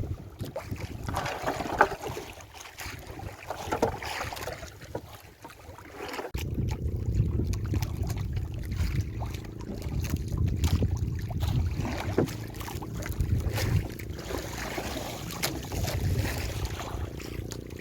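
Water splashing and sloshing against a small boat at sea, with wind buffeting the microphone. About six seconds in, a heavier low rumble takes over suddenly.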